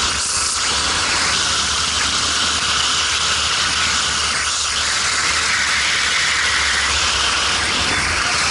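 Steady rushing hiss of wind over a kart driver's helmet camera at racing speed, with the kart's engine running underneath.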